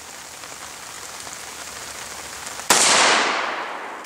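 One AR-15 rifle shot about three-quarters of the way in: a sharp crack that trails off in a long echo over more than a second. Before it, only a steady faint hiss.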